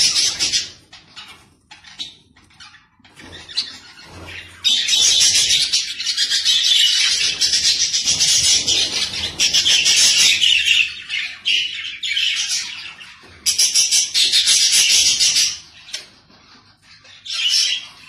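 Budgerigars chattering and warbling in long runs of rapid, high chirps, broken by brief pauses, with a last short burst near the end.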